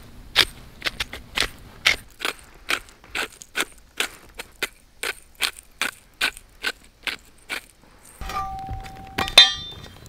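Hand-twisted spice mill grinding pepper and coarse salt: sharp ratcheting clicks, about two or three a second, that stop near the end. A loud sharp clank follows shortly before the end.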